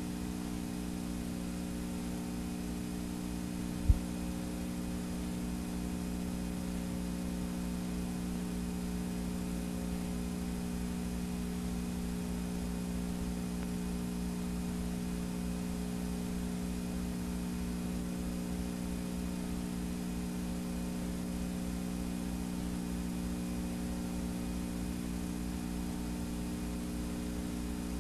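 Steady electrical hum with hiss from a blank stretch of videotape played back, with a single sharp click about four seconds in.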